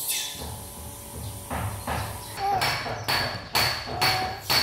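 Regular sharp knocking, about two strikes a second, each with a short metallic ring, starting about halfway through.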